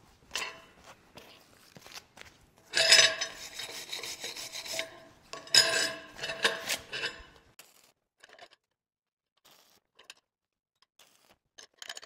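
Stick-welding arc crackling in two bursts of about two seconds each, with a faint steady hum under them: tack welds being laid with 3/32 7018 rod at about 105 amps.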